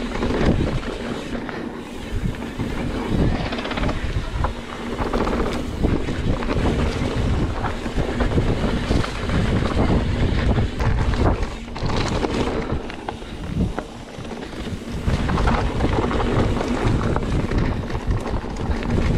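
Wind buffeting the microphone of a mountain bike's camera while riding a dirt singletrack, over a rumble from the tyres and repeated knocks and rattles from the bike on bumps.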